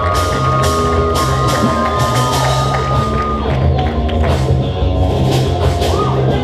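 Live band music with a steady drum-kit beat and a held, gliding lead tone over it.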